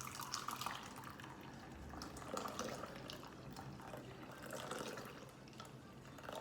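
Hot coffee being poured from a French press into a mug: a continuous liquid pour with small splashes as the mug fills.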